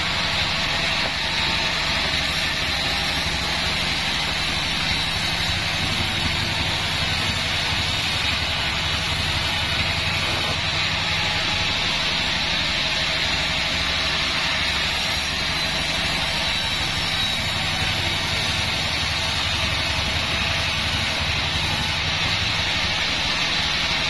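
Band sawmill (a Bandsaw36 band saw) running and sawing lengthwise through a mahogany log: a steady, even machine noise of the motor hum with the hiss of the blade in the wood, unchanged throughout.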